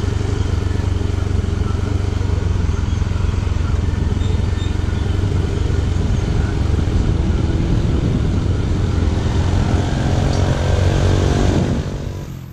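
Motorcycle engine idling steadily while stopped at a stoplight. Near the end an oncoming motorcycle tricycle's engine joins in, a little louder, and then the sound fades out.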